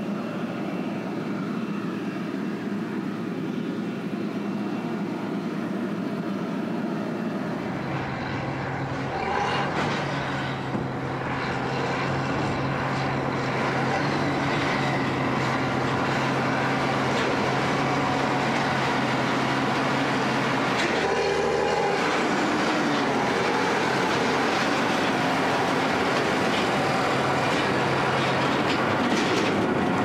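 Steady noise from a distant combine harvester working a wheat field. Then a tractor's engine running with a steady hum that grows louder as it tows a large grain chaser bin up to and onto a railway level crossing, with knocks and rattles from the bin and its wheels over the rails.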